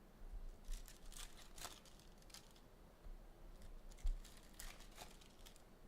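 Packs of 2022-23 Donruss basketball trading cards being torn open, their wrappers faintly crinkling and rustling in short bursts, with a soft knock about four seconds in.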